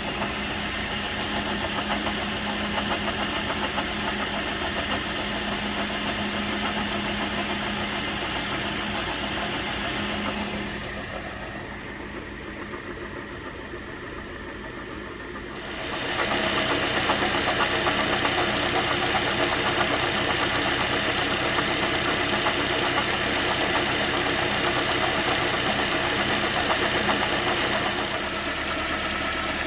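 Toyota Corolla engine running steadily, with the accessory-drive noise being diagnosed, a noise the owner links to the water pump. The sound turns quieter and duller for a few seconds near the middle, then comes back louder and brighter.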